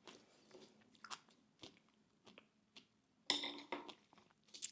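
A person eating close to the microphone: quiet, scattered crunching and chewing, with a louder bite a little over three seconds in and another near the end.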